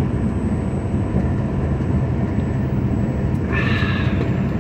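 Steady low engine rumble inside a truck cab, with a short higher-pitched sound about three and a half seconds in.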